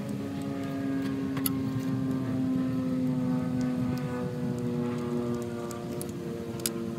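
An engine drones steadily, its pitch slowly falling, with two sharp metallic clicks from hand-tool work: one about a second and a half in, one near the end.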